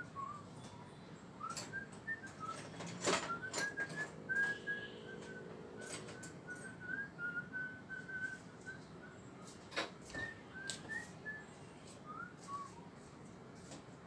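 A person whistling a tune in short, quick notes, with pauses, and a few sharp clicks and taps, the loudest about three seconds in.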